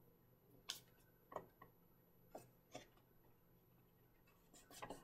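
Near silence broken by about five faint, short taps in the first three seconds and a soft paper rustle near the end: paper eye pieces being handled, set on a paper plate and pressed down by hand.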